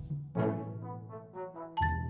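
Background music with brass instruments playing short notes over a steady beat.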